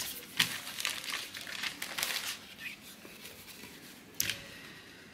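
Crinkling and rustling as a folded printed cross-stitch canvas is handled and opened out by hand, busiest in the first two seconds or so, with one sharp crackle about four seconds in.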